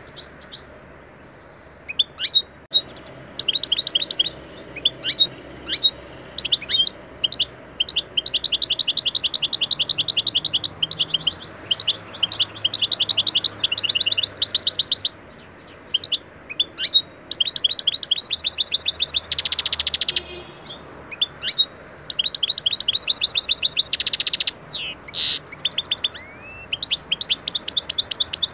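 European goldfinch singing, starting about two seconds in: long runs of rapid twittering trills and sharp chirps, broken by a couple of buzzy rattling notes.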